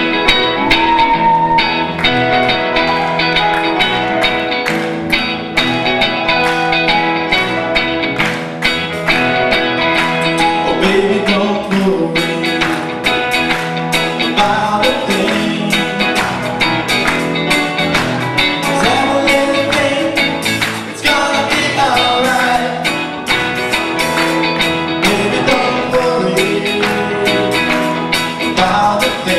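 Live rock band playing a song on stage: electric guitars, drums and grand piano together, with a steady beat.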